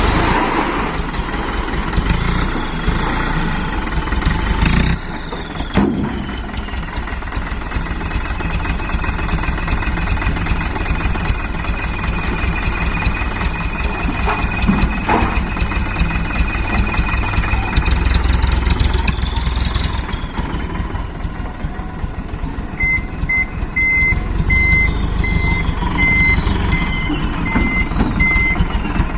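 Dump truck engine running steadily. In the last few seconds a reversing beeper sounds in a run of evenly spaced short beeps at one pitch.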